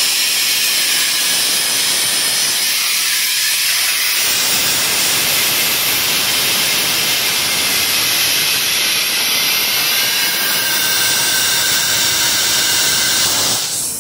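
Compressed air hissing steadily from a shop air hose while a freshly mounted golf cart tire is inflated. The hiss grows fuller about four seconds in and cuts off just before the end.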